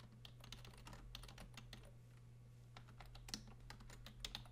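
Faint typing on a computer keyboard: an irregular run of soft key clicks over a low steady hum.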